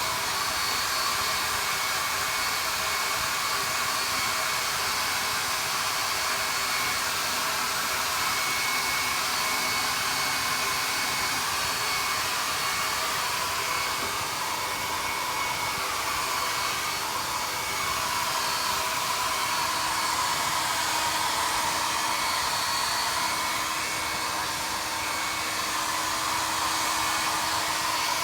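Hair dryer running steadily, blowing on a front-load washing machine's control board to dry off water that had been getting onto it.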